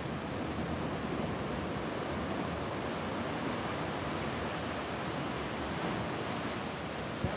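Steady wash of ocean surf against a rocky shore, mixed with wind, with a brief click near the end.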